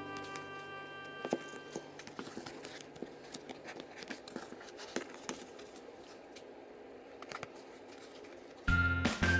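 Fabric and cardboard being handled: soft rustling and scattered small clicks as the fabric is folded and pressed around a cardboard piece. Background music fades out at the start and comes back loudly near the end.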